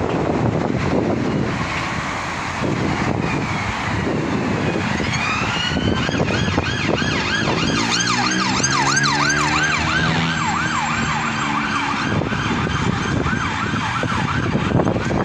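Emergency vehicle siren. It winds up about five seconds in, then wavers quickly up and down, about twice a second, over wind and traffic rumble.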